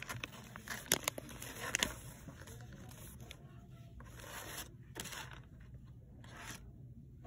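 Rustling and scraping handling noises in several short bursts, with a few sharp clicks about one and two seconds in.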